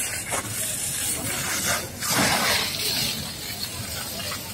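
Water from a fire hose spraying onto a burning truck, a steady hiss of spray and steam that grows louder for a moment about two seconds in.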